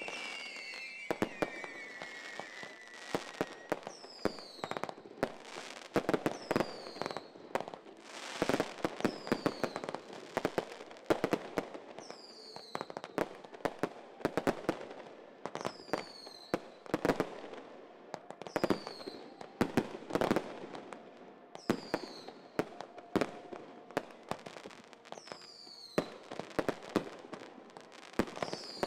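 Fireworks display: aerial shells going off in a rapid string of sharp bangs and crackling, with short high falling whistles recurring every second or two.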